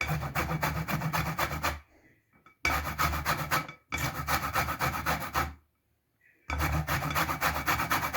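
A lemon being rubbed up and down on a hand grater to take off its zest: quick rasping strokes in four runs, with brief pauses between them.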